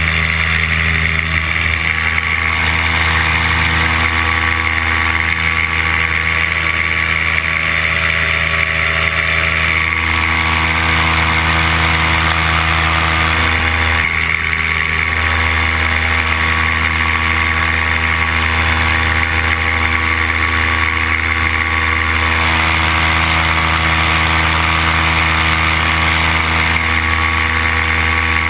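Paramotor engine and propeller running steadily in powered flight, a loud, even drone.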